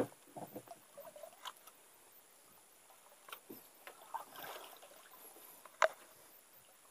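Faint, scattered clicks and knocks of gear being handled aboard a small fishing boat, with a sharp click at the very start and another a little before the end.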